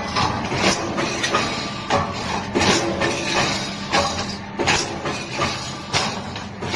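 CNC hydraulic pipe punching machine at work on square steel tube: repeated sharp punch strokes, about one to two a second, over a steady hydraulic pump hum.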